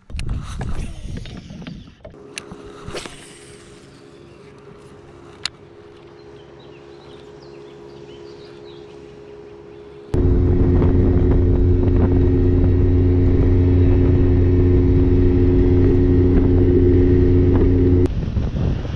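Bass boat's outboard motor running steadily and loud for about eight seconds, starting abruptly about ten seconds in and cutting off sharply near the end to a rush of wind and water. Before it, a fainter steady motor hum.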